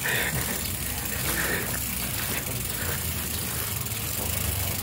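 Bicycle rear freewheel ticking as the bike is wheeled uphill by hand, over a steady low hum.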